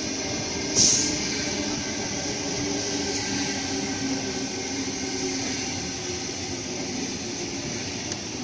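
Sydney Trains Tangara electric multiple unit pulling into the platform and slowing, wheels running on the rails under a hum of several steady tones that fade as it slows. A brief loud hiss sounds about a second in.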